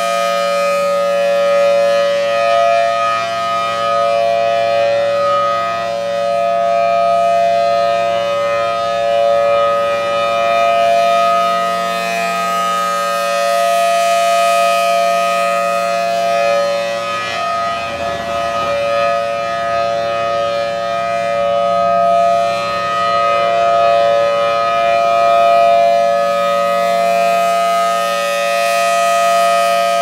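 Federal Signal Thunderbolt outdoor warning siren sounding a steady alert tone, its level slowly swelling and fading as the horn rotates. This is the 2-minute Alert signal of a weekly siren test.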